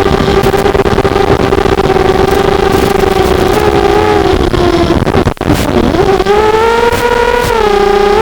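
Four brushless motors (RCX1804 2400kv) of an FPV250 quadcopter whining steadily in flight. About five seconds in the throttle drops and the pitch falls briefly, then it rises higher and settles back to a steady whine near the end.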